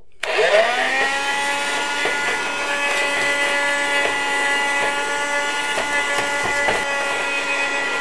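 Lidl SAS 7.2 A2 handheld cordless vacuum cleaner, running on its new fully charged lithium cell pack, switched on: its motor whines up in pitch to speed within about a second, then runs steadily. Scattered clicks and rattles come from wood chips being sucked up through the nozzle.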